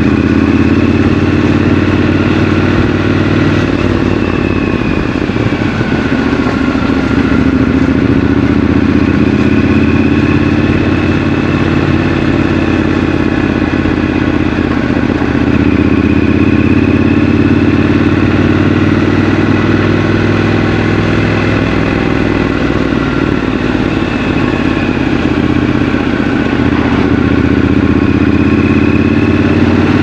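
Triumph Scrambler 1200 XC's 1200 cc parallel-twin engine running while the motorcycle is ridden, its note rising and falling gently several times as the throttle opens and closes.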